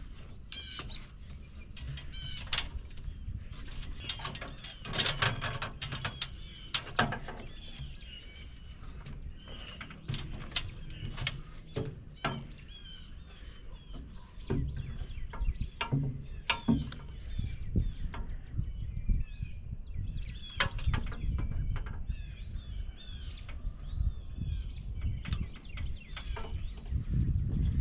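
Birds chirping, with scattered sharp knocks and clatter that are thickest in the first several seconds.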